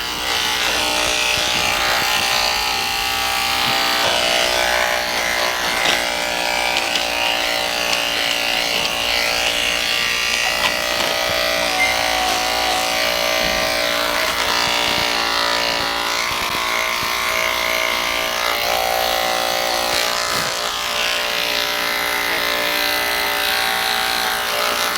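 Electric dog grooming clippers running steadily as the poodle's coat is shaved short, their hum wavering slightly as the blade works through the coat.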